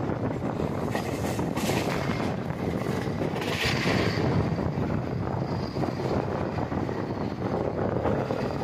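Passenger train running along the line, heard from an open coach doorway: a steady rumble and rattle of wheels on the rails, with a brief higher hiss about three and a half seconds in.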